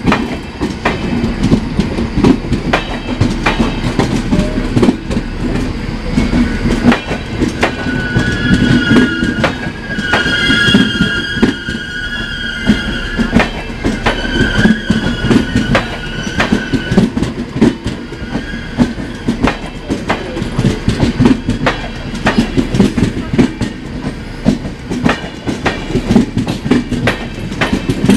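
Passenger train coaches rolling past at speed, the wheels clicking rhythmically over rail joints above a steady rumble. For several seconds in the middle, a wavering high wheel squeal rises over the clatter.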